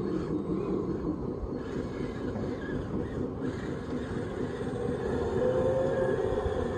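Radio-controlled construction model running: a steady mechanical rumble, with a faint whining tone rising in about five seconds in.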